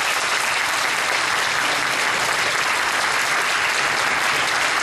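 Concert hall audience applauding steadily.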